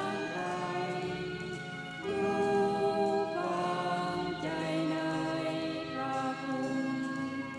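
Background music of slow singing in long held notes, moving to a new note every second or two.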